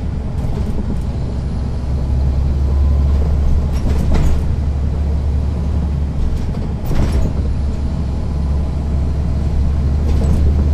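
Caterpillar C13 ACERT diesel engine of a NABI 40-foot transit bus running with a steady low drone, heard from the rear seats inside the bus. A few short rattles cut through about four and seven seconds in.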